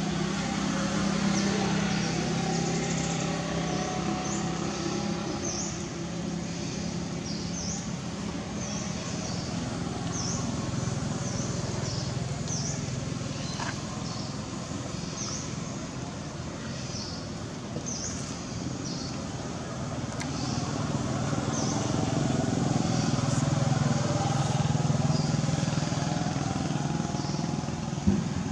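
A steady low motor hum under a noisy haze, with a short high chirp repeating about once a second throughout; the hum swells for a few seconds late on.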